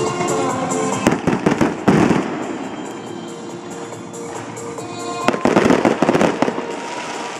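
Fireworks bursting and crackling in two rapid volleys, about a second in and again about five seconds in, over music playing.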